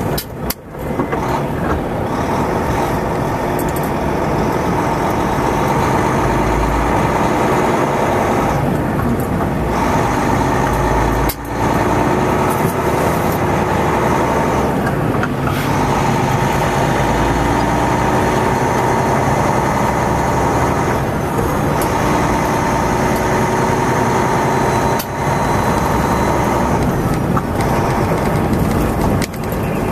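Heavy truck's engine running steadily under way, heard inside the cab over road noise, with the engine note briefly dropping out several times.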